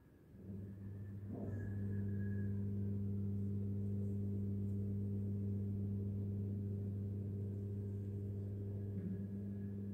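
Steady low hum with overtones, starting about half a second in and cutting off near the end.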